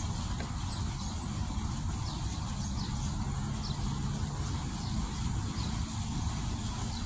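Fountain jets splashing steadily into their basin, an even rushing hiss, over a low steady rumble. Faint short high chirps come through now and then.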